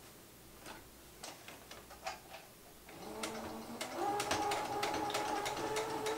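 Brother Laura Ashley edition computerized sewing machine starting up about three seconds in and stitching, its motor whine stepping up in pitch a second later over rapid needle clicking. Before it starts there are only a few faint clicks of fabric handling.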